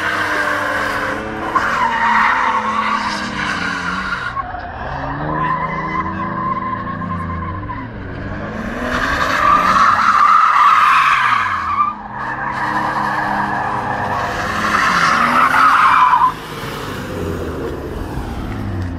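A car doing donuts on concrete: the engine revving hard, its pitch rising and falling again and again, with the tyres squealing as they slide. The noise dips briefly about two-thirds of the way through, and the throttle comes off near the end.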